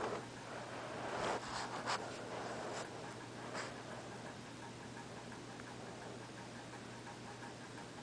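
A person hiccuping and breathing close to the microphone: a few short, sharp sounds in the first four seconds, the loudest about two seconds in.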